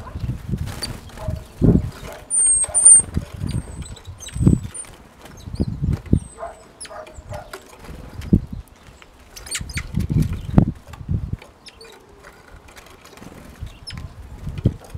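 Great tits and blue tits at a wooden feeder: repeated wingbeat flutters and low thuds as they land and take off, with sharp clicks of pecking and perching. A few short high-pitched bird calls come about two to three seconds in.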